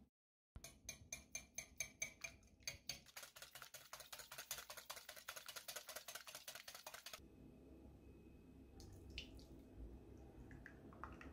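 Wire whisk beating egg in a bowl: the wires click against the bowl, first at a few strokes a second, then in a fast, steady rattle for about four seconds before stopping abruptly. Near the end, a soft pour of kefir into the bowl.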